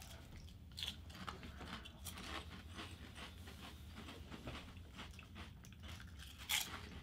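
People biting and chewing crisp Lay's Classic potato chips: a run of small crunchy crackles, with a sharper crunch about a second in and another near the end.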